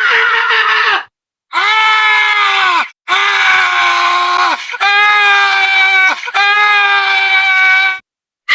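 Human screaming: a series of long, high-pitched screams, each held at a steady pitch for about a second and a half, with short silent gaps between them. One scream ends about a second in, and four more follow.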